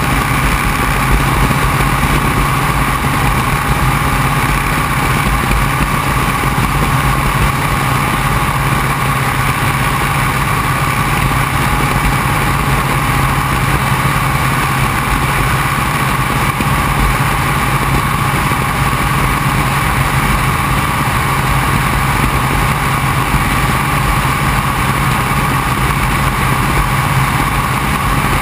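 Open-cockpit biplane's engine and propeller running steadily in cruise flight, a constant drone with rushing airflow over the open cockpit, holding the same pitch and level throughout.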